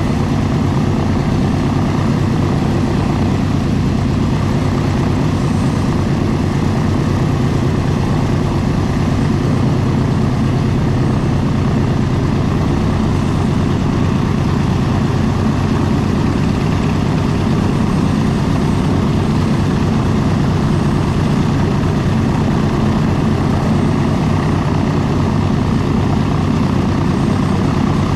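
Boeing B-29 Superfortress's four Wright R-3350 radial engines running at idle on the ground, a steady low drone that holds even throughout.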